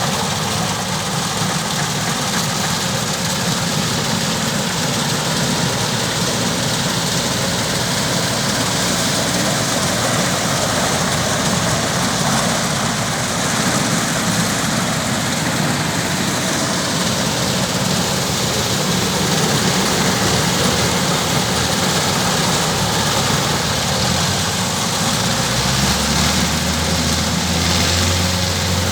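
Kubota DC-105X combine harvester running steadily, its diesel engine and threshing machinery making a loud, continuous mechanical noise. A deeper low hum joins near the end.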